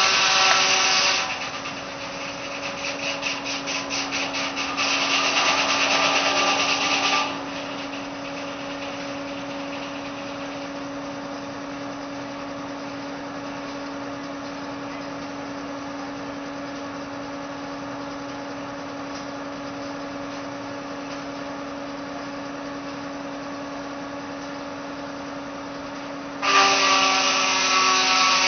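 Tractor-powered sawmill's saw blade cutting through wood, a loud ringing whine for the first several seconds with a rapid ticking stretch partway through. It then spins free with a steady hum for about twenty seconds and bites into the wood again, loudly, near the end.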